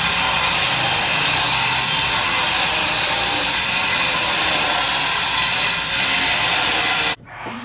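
Power tool grinding marble: a loud, steady, rasping noise that cuts off abruptly about seven seconds in.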